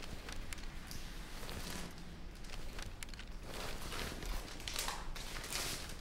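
Paper rustling as letters and a glossy magazine are handled and leafed through, in short scratchy strokes that grow heavier in the second half.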